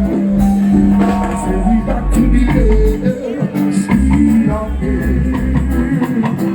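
Loud music with a singing voice over a deep, pulsing bass line.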